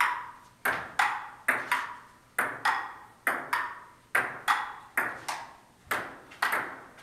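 Table tennis rally: the ball clicking sharply off the table and the paddles in a steady back-and-forth, the clicks coming in quick pairs (bounce, then hit) about once a second, each with a short echo.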